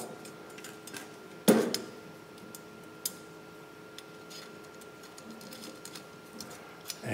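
Small steel machine screws and an aluminium channel and motor mount being handled during assembly: one sharp metallic click about a second and a half in, a smaller click a second and a half later and a few faint ticks, over a faint steady hum.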